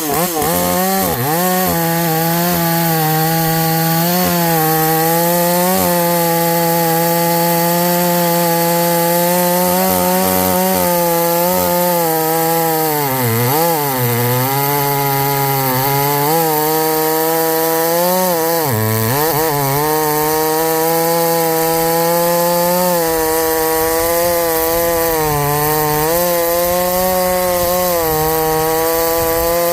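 Harbor Freight Portland gas chainsaw with a muffler mod running at full throttle while cutting through a pine log. The engine speed drops sharply twice, about 13 and 19 seconds in, as it bogs in the cut, then climbs back each time.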